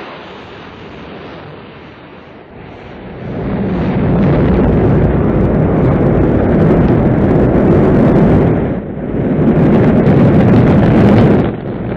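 Rocket engines at launch: a loud, even rumble that swells about three seconds in and stays loud, with two brief dips near the end.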